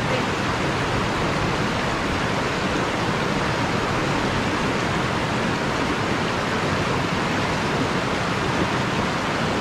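Steady rush of shallow river water pouring over a low weir and rocks.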